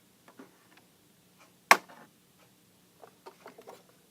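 Handling noise from plastic alarm detectors being picked up and put down: a few faint clicks, one sharp knock a little before the middle, and a short run of light taps near the end.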